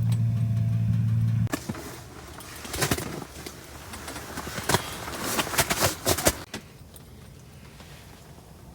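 A steady low mechanical hum cuts off abruptly about a second and a half in. Scattered clicks and light rattles follow, like gear being handled, with the loudest bunched around two thirds of the way through.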